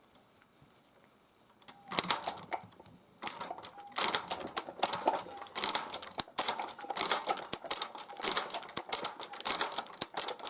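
Tippmann Boss hand-operated leather sewing machine being worked by its lever, clacking stitch after stitch through leather. The clacking starts about two seconds in and runs near-continuously from about four seconds in.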